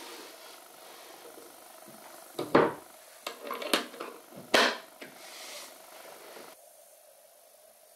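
Several sharp wooden knocks and clatters, like wood being handled or set down, the loudest about two and a half seconds in and again near the middle, over a faint steady hum that stops about six and a half seconds in.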